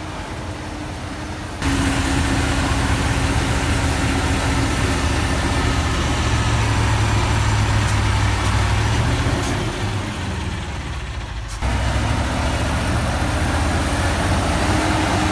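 KamAZ truck engine running hard under load, a steady heavy rumble that jumps up abruptly in level about a second and a half in, sags briefly near ten seconds, and jumps back up about two seconds later.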